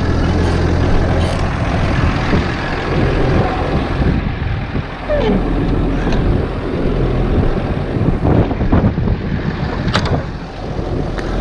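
Tractor engine running steadily with a low drone, with one brief sharp click near the end.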